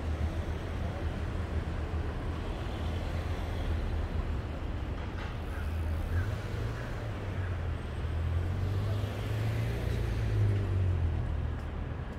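Street traffic noise with a heavy vehicle's engine running close by, a steady low rumble whose pitch rises a little about halfway through.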